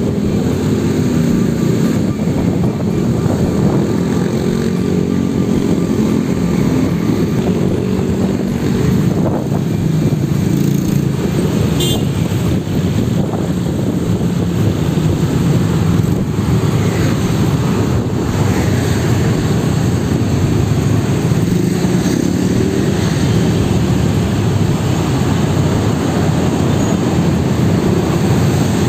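Slow-moving city road traffic heard from a vehicle in the queue: a steady low rumble of idling and creeping engines, with motorcycles running close alongside.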